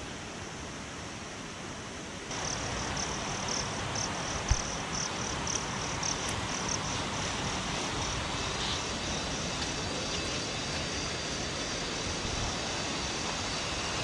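Rainforest ambience: a steady rushing of a nearby stream, with an insect chirping in a rapid, high pulsing rhythm from about two seconds in to about halfway. A single soft thump comes about four and a half seconds in.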